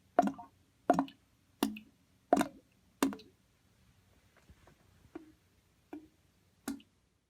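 Water gurgling as single large bubbles break, one plop about every 0.7 seconds. After about three seconds the plops turn fainter and come less often.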